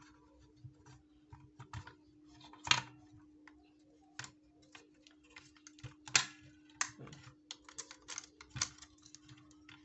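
Irregular plastic clicks and taps as a portable radio's case, front panel and circuit board are handled and fitted together, the loudest knocks about 3 and 6 seconds in. A steady low hum runs underneath.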